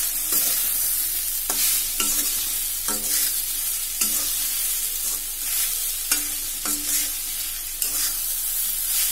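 A metal spoon scrapes and stirs coarsely ground urad dal stuffing around a metal kadhai, mixing in the spices. The strokes come about once or twice a second, each with a brief metallic ring, over a steady sizzle from the pan.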